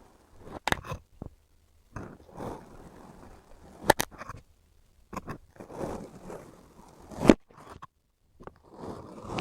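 Kinetic sand being cut: about four slow crunchy, scraping strokes, the first three each ending in a sharp click.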